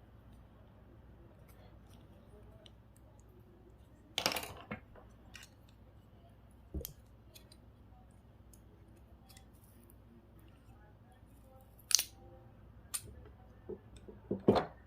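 A few sharp clicks and snips of small hand tools working on electronic parts, spaced irregularly. The loudest come about four seconds in and again about twelve seconds in.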